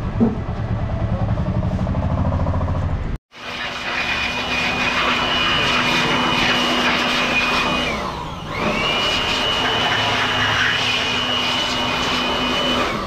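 For about three seconds a low, regular throbbing. Then, after a brief cut, a handheld electric air blower runs with a steady whine. Its pitch sinks about eight seconds in as it is let off, then rises again as it spins back up.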